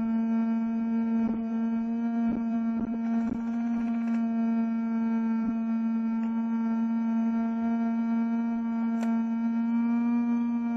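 Small electric fan running right by the microphone: a steady whine with a stack of overtones. A few faint knocks come in the first few seconds.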